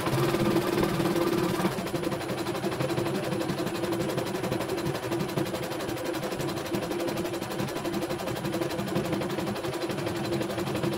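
CNY E900 computerized embroidery machine stitching a design: the needle runs at a steady rapid rhythm while the hoop carriage shifts the fabric. It is running smoothly after repair.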